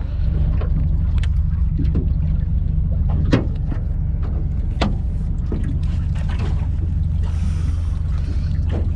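Boat motor running steadily at a low idle, a deep even rumble, with a few sharp knocks on the deck, the clearest about three and about five seconds in.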